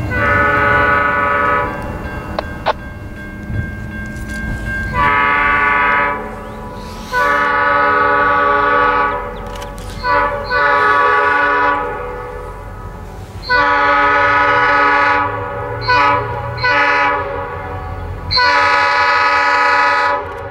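Diesel locomotive horn on an approaching freight train, a chord of several notes blown in repeated long blasts with a couple of short ones, the pattern sounded for road crossings. A low rumble of the train runs underneath.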